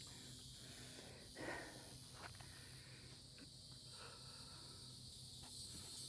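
Near silence: faint dusk ambience with a steady high insect drone, and two soft scuffs about a second and a half and two seconds in.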